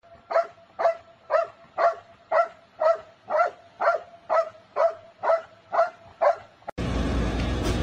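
Large black dog barking over and over at a steady pace, about two barks a second, some thirteen barks in all. Near the end the barking stops and a loud, even hiss takes over.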